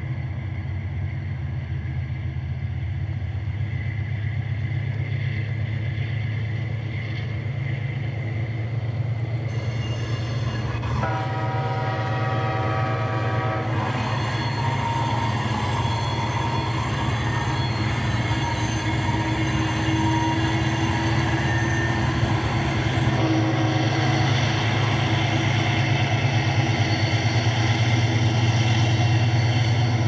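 Dubbed sound effect of a diesel freight train passing, a steady low engine and rail rumble throughout. An air horn sounds one blast about eleven seconds in, lasting about three seconds.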